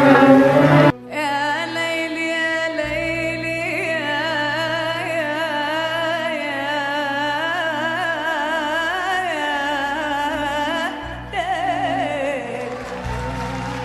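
Music: a solo singer holds one long, ornamented note with wide vibrato over steady instrumental backing, in Middle Eastern vocal style. The sound cuts abruptly about a second in, and a new sung phrase begins near the end.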